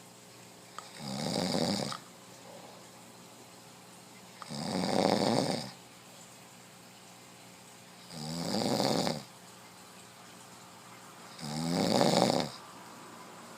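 A sleeping man snoring: four long, fluttering inhaled snores about three and a half seconds apart.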